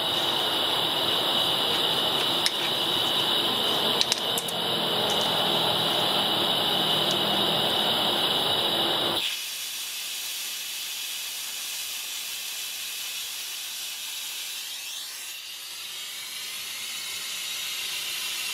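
Vacuum brake bleeder hissing steadily while it draws old brake fluid out of a rear drum-brake wheel cylinder through the opened bleeder screw. A few light clicks come about two and four seconds in, and about nine seconds in the hiss drops suddenly to a softer level.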